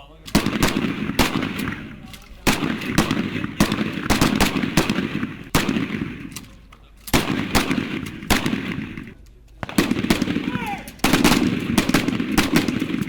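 Several shotguns firing on a range in rapid, overlapping strings of shots that echo, each string lasting a couple of seconds with short lulls between.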